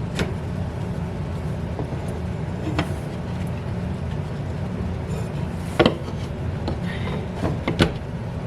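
A tacked-on panel being pried loose, with a few short sharp knocks and cracks as its brad nails give, the loudest two past the middle. A steady low hum runs underneath.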